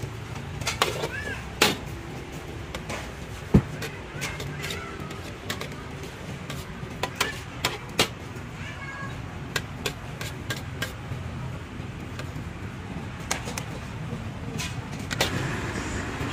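Metal ladle clinking and scraping against a wok as fried rice is scooped out onto plates: irregular sharp knocks, the loudest about a third of the way in, over a steady low hum.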